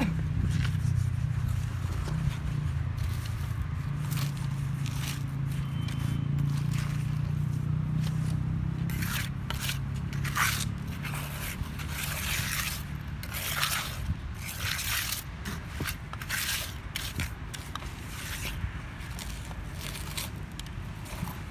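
Repeated rough scraping strokes of a tool on paving material, coming thickest about halfway through, over the steady low hum of an engine running on the site.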